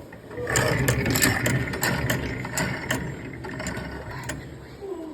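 Roughly 100-year-old antique drill press being worked, its gears turning with a low rumble while its ratchet feed clicks, about three uneven clicks a second. The clicks stop a little before the end.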